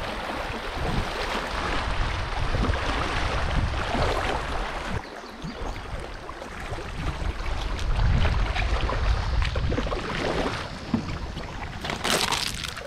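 River water rushing and lapping around a fishing kayak drifting in a shallow current, with wind buffeting the microphone as a low rumble. A brief louder rush of noise comes near the end.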